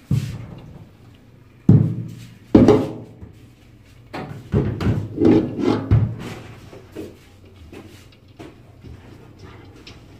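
Repeated knocks and thuds of a metal cooking pot against a steel sink and colander as it is tipped and tapped to empty parboiled rice. There is one knock at the start, two more within the first three seconds, a quick run of knocks a little past the middle, then fainter taps.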